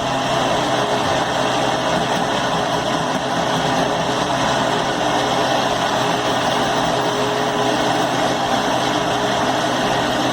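Countertop blender motor running steadily, blending a thick cake batter of eggs, milk, butter, sugar and flour.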